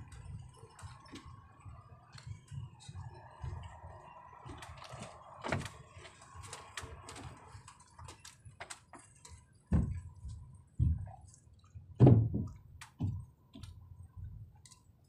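Footsteps and thumps on an outrigger boat's deck as sacks are loaded aboard, with scattered small knocks and clicks and a low rumble underneath. Four heavy thumps come close together about ten to thirteen seconds in.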